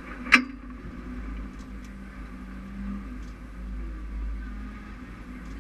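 Mini sport dirt-track race car's engine idling steadily while stopped, heard from inside the cockpit, with one sharp click about a third of a second in.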